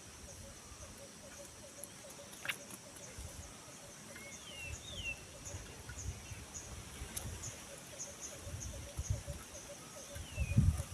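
Birds calling in short whistled notes that slide down in pitch, a few times, over a steady pulsing chirp of insects. Low thumps come near the end.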